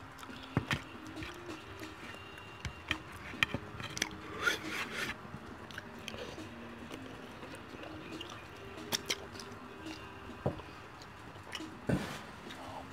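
Wet eating sounds from a person finishing saucy fried chicken wings: scattered lip smacks and clicks and sucking sauce off fingers and bone, with a longer slurping burst about four and a half seconds in. Faint background music runs underneath.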